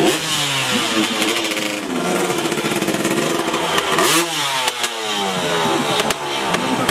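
Dirt bike engine revved hard and let fall again several times, its pitch rising and falling as the rider works the throttle through stunts.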